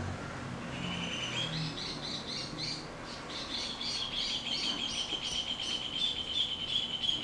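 A bird singing: a run of quick, high repeated chirps, about four a second, starting about a second in and running into a steady high trill from about three seconds in.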